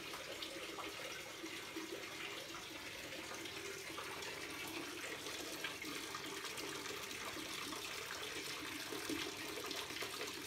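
Water pouring from a wall spout into a bathtub that is filling, a steady splashing stream.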